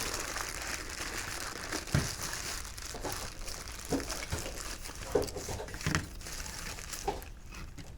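Plastic packaging crinkling and rustling as parts are handled, with a few light knocks.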